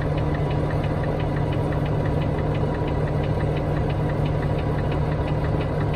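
Truck engine idling: a steady low hum with a light tick about four times a second.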